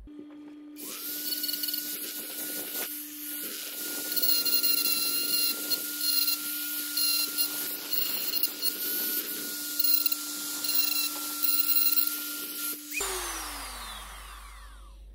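Handheld rotary tool running at steady speed, its small bit grinding and polishing a cast metal EGR valve housing, the scraping rising and falling as the bit touches the metal. The tool starts about a second in and spins down with a falling whine near the end.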